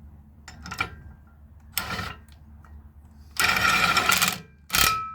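Brass valve parts being knocked and rattled, metal on metal. There are a few short clatters, then a longer rapid rattle about three and a half seconds in, then a sharp strike that leaves a brief metallic ring.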